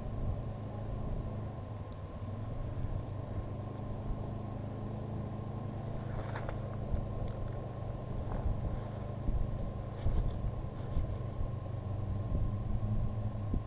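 A steady low engine hum, like a motor idling, with low wind rumble on the microphone. A few faint clicks come about halfway through.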